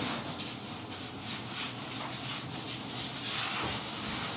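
Steady wet hiss and rustle of a standard poodle being bathed in a grooming tub, hands working through its soaked, lathered coat.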